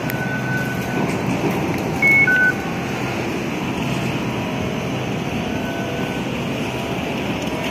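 Steady hum and rumble of vehicle noise, with a short electronic two-note beep, a higher tone then a lower one, about two seconds in.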